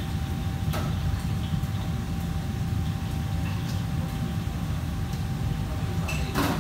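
Steady low mechanical rumble of kitchen machinery with a faint constant hum. There is a light click about a second in and a brief clatter near the end.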